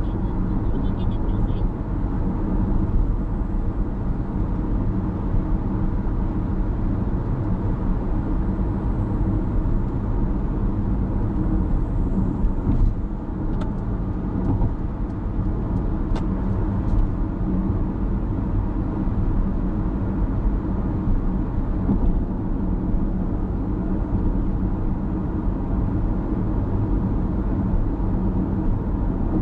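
Car driving at speed on an expressway: a steady low rumble of tyre and road noise with engine drone, unchanging throughout.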